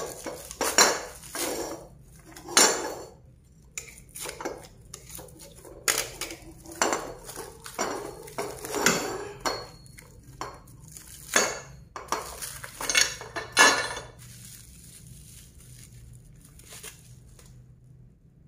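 Plastic wrap being cut with a box-cutter blade and peeled off a new metal motorcycle exhaust header pipe, with sharp metallic clinks and scrapes of the pipe and blade. The clatter comes in quick irregular bursts and stops about 14 seconds in, leaving only a faint hum.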